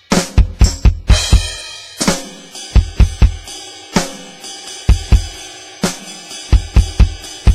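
Alesis DM10 and Nitro electronic drum kit played as one, its sampled kick, snare, tom and cymbal sounds coming through the module: a busy fill with rapid strokes and cymbal crashes, a brief pause, then more beats and crashes.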